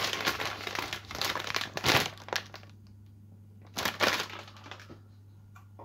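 Crinkling of a Takis crisp packet being handled, mixed with the crunch of a rolled tortilla chip being chewed, in dense crackles for the first two and a half seconds. It goes quiet, then gives one more short rustle about four seconds in as the packet is swung about.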